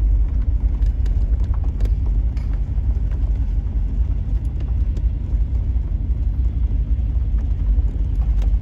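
Steady low rumble of a car's engine and tyres heard from inside the cabin while driving.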